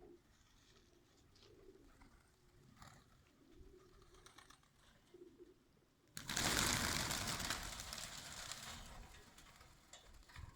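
Birmingham roller pigeons cooing softly. About six seconds in, a sudden loud rushing noise breaks in and fades away over the next few seconds.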